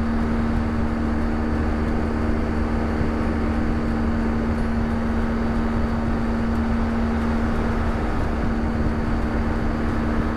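BMW R1200GS Adventure's boxer-twin engine droning at a steady pitch while cruising at constant speed, under a steady rush of wind and road noise.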